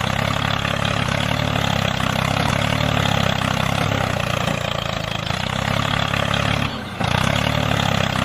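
A small engine running steadily at an even speed, with a brief dip about seven seconds in before it carries on.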